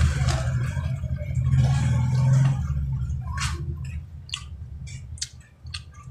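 Close-miked chewing of boiled sweet corn bitten off the cob, with sharp wet mouth clicks through the second half. A loud low rumble fills the first three seconds.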